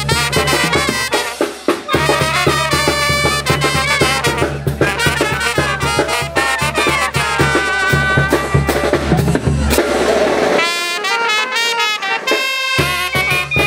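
Banda-style brass music with trumpets and trombones over a steady low bass line; the bass drops out for about two seconds near the end while the horns carry on.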